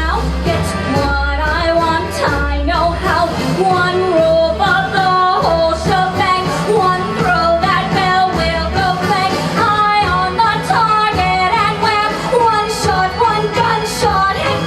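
A singer performing a show tune live over instrumental accompaniment, the voice moving through sustained melodic notes.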